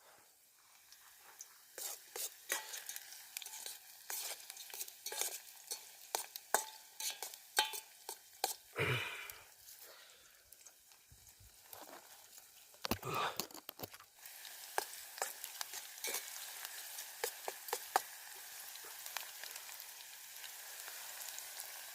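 Onions frying in oil in a pan, stirred with a spoon that scrapes and taps against the pan in quick irregular strokes; about halfway through a steady sizzle sets in under the taps.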